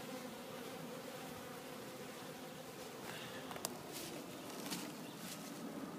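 Honey bees buzzing around a hive, a steady drone of many wings, with a single sharp click about three and a half seconds in.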